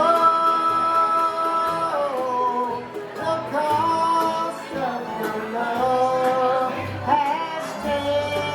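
A bluegrass band playing live: plucked acoustic strings under a melody of long held notes that slide from pitch to pitch.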